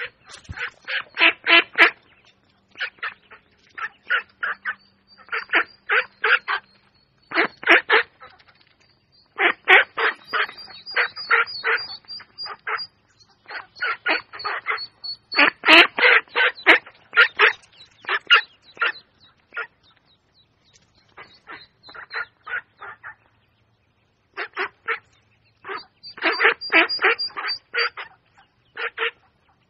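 A flock of ducks, mallards among them, quacking in quick runs of short quacks, several a second, in repeated bursts with short pauses.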